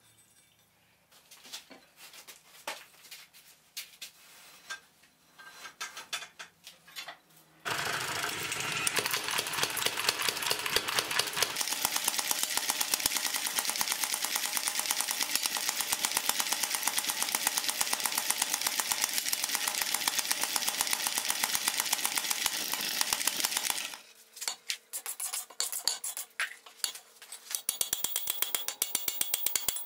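Power hammer pounding a red-hot steel bar in rapid, steady blows for about sixteen seconds, roughing in the taper on the end of 3/4 x 3 flat stock. Before it come scattered light knocks of the bar being handled, and near the end a run of hand-hammer blows on the anvil.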